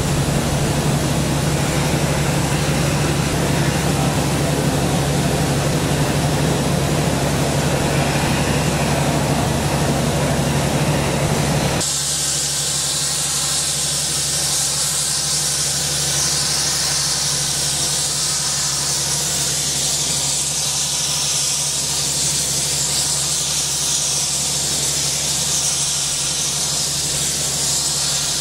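Flame-spray powder coating gun running steadily with a rushing flame and a low steady hum underneath. About twelve seconds in the sound switches abruptly to a high, steady hiss of a handheld flame-spray gun spraying powder through its flame.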